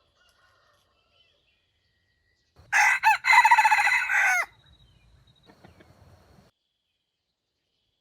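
A wild junglefowl rooster crowing once, about two and a half seconds in: a short opening note, then a longer held note that drops away at the end.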